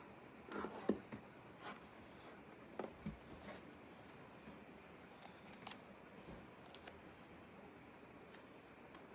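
Faint handling sounds of blue masking tape being torn off in short strips and pressed on to hold binding against a mandolin body: a few quick clicks and rustles, loudest about a second in, with more near three seconds and scattered ticks after.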